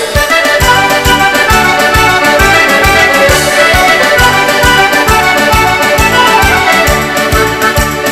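Instrumental music with no singing: a melody of sustained keyboard-like tones over a steady, regular bass beat, the instrumental break of a Calabrian dialect song.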